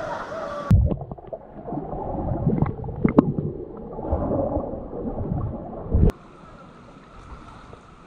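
Water heard from under the surface through a submerged action camera: muffled gurgling and bubbling with irregular knocks. About six seconds in it cuts off abruptly to a steady, quieter rush.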